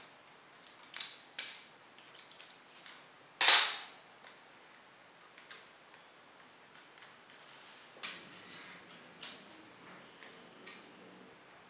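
Small metallic clicks and clinks of a steel bicycle chain and chain-breaker tool being worked by hand, with one sharp, loud click about three and a half seconds in, then softer handling rustle.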